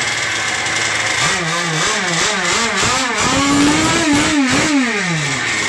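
A small engine of a radio-controlled racing boat is revved up and down in quick blips from about a second in. It climbs to a higher rev held through the middle, then falls away near the end.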